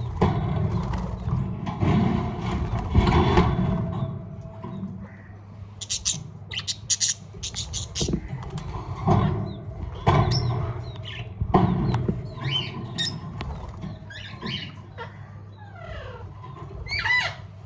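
Pet parrots calling with squawks, chirps and whistles, with wings flapping and rustling bumps. The loudest bumps come in the first few seconds; the whistled calls grow more frequent near the end.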